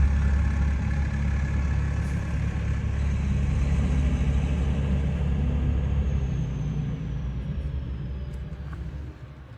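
A small snowplow's engine runs with a steady low note, then fades away over the last few seconds as the plow moves off.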